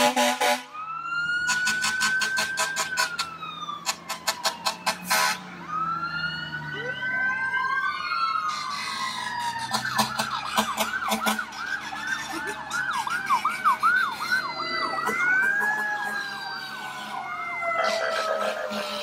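Several fire truck sirens at once, wailing up and down, with fast yelping in the middle. In the first five seconds, three loud buzzing horn blasts sound over the sirens.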